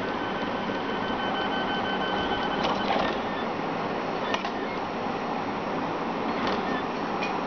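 3D printer printing: its stepper motors whine in steady tones that break off and change about a third of the way in as the hotend's moves change, over a steady hiss, with a few sharp clicks.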